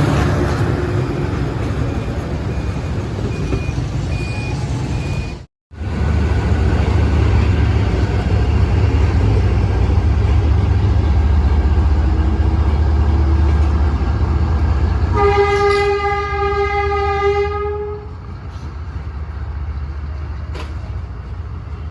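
Diesel locomotive engine running with a steady low rumble, then one long horn blast of nearly three seconds about two-thirds of the way through, from a Vietnam Railways D19E diesel-electric locomotive.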